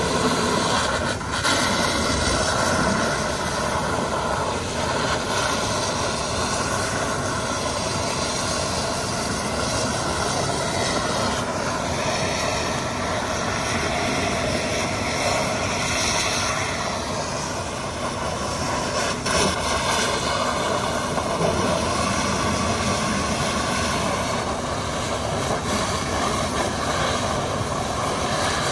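A fire pumper truck's engine and pump running hard while its deck gun shoots a high-pressure stream of water, a steady rushing roar with no break.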